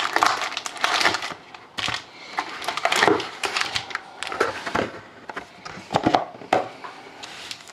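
Foil trading-card pack wrappers and card box being handled: irregular crinkling, rustling and sharp crackles.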